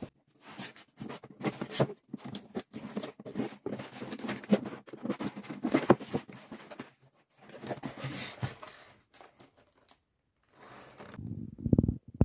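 A cardboard shipping box being opened by hand: packing tape is slit and torn and the cardboard flaps scrape and bend open, in irregular bursts of tearing and rustling with short pauses. Near the end comes a heavier, lower rustle.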